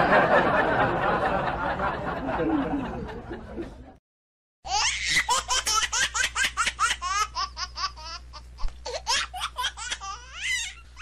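Laughter: a dense burst of laughing that fades over about four seconds and cuts off abruptly, then, after a brief silence, one high voice laughing in quick, rapid bursts that rise and fall in pitch.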